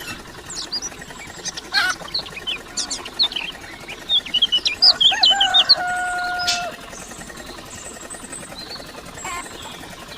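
Small birds chirping in quick, high calls, and a rooster crowing once about five seconds in, its call wavering and then ending in a long held note.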